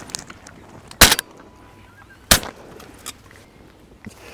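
Shotgun shots fired at geese overhead: two sharp blasts about a second and a half apart, each with a trailing echo, and a third right at the end.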